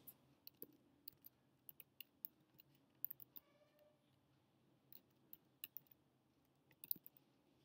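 Faint, irregular keystrokes on a computer keyboard: single taps every half second or so, with a few quick clusters, while code is typed.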